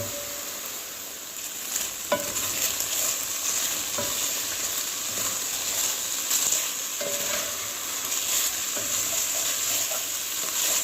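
Strips of beef sizzling as they brown in an overcrowded pot, with a steady hiss. A few times a utensil knocks against the pot with a short ring as the meat is stirred and turned.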